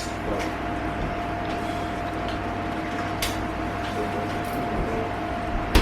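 A person chewing food close to the microphone, with a couple of sharp crunchy clicks, over a steady electrical hum.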